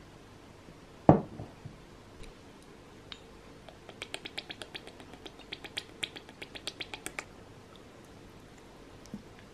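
A glass mixing bowl is set down on a wooden table with one thump about a second in. From about four seconds in come three seconds of quick, light clicks, about eight a second, as Worcestershire sauce is poured from a glass bottle into a metal measuring spoon.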